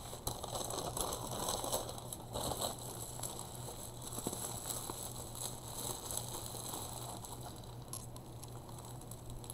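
Bubble wrap crinkling and rustling with small irregular crackles as hands handle a bubble-wrapped package.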